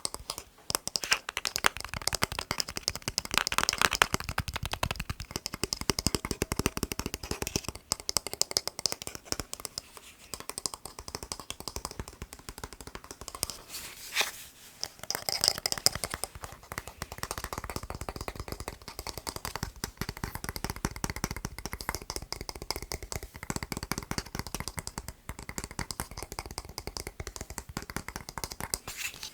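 Fingernails tapping fast on a plastic TV remote, a dense run of light clicks and taps with some scratching and rattling of the plastic case. The taps pause briefly a few times.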